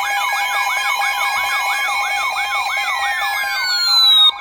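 Emergency alert tone broadcast over FM radio ahead of a severe thunderstorm warning: steady alert tones with a siren-like sweep layered over them, rising and falling about three times a second. Near the end a tone glides downward, and the sound cuts off abruptly.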